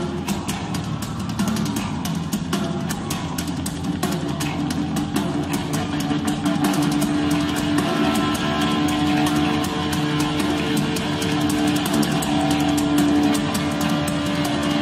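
Heavy rock music: guitar playing held notes over busy drum-kit playing.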